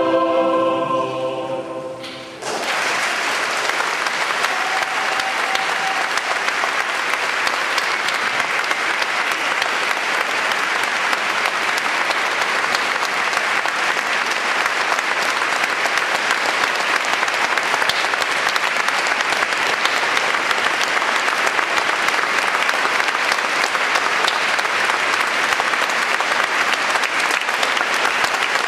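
A choir's last sung chord fades out, then about two and a half seconds in an audience breaks into steady applause that carries on.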